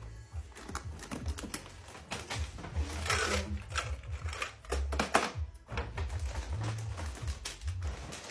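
Irregular light clicks and taps of snack packages being handled and set into an acrylic trunk, with low bumps and a brief rustle of wrapping about three seconds in.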